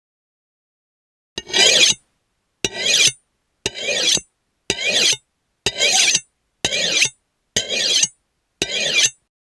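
Knife blade drawn along a sharpening steel, picked up by a contact microphone: eight quick metal-on-metal scraping strokes, about one a second, each opening with a sharp click and lasting about half a second. The strokes begin about a second and a half in.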